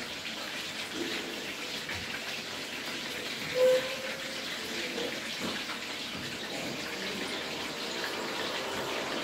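Food sizzling in hot oil in a frying pan as it is stirred with a spatula, a steady crackling hiss. One short, louder squeak about three and a half seconds in.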